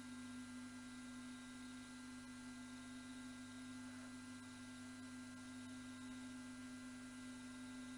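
A steady low electrical hum, one held tone, over a faint even hiss.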